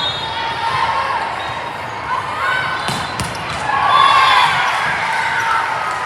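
Volleyball rally in a gym: a sharp hit of the ball about three seconds in, with voices of players and spectators calling out, loudest about a second later.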